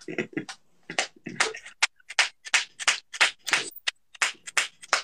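Stifled, breathy laughter: a quick run of short puffs of breath, about three a second.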